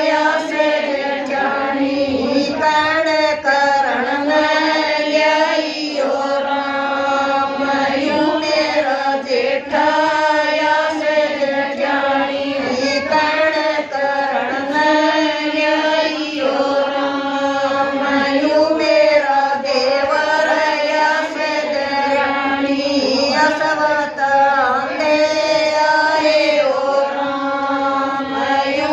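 Women singing a Haryanvi devotional folk bhajan, a continuous chant-like melody with long held notes.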